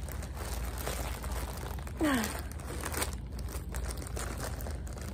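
Plastic poly mailer bag crinkling and rustling as it is gripped, twisted and pulled by hand in an effort to tear it open. There is a short falling vocal sound about two seconds in.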